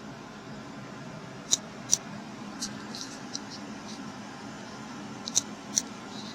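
Steady hum and hiss of a running central air-conditioning system heard in the attic, with a few sharp high-pitched ticks, two pairs of them louder than the rest.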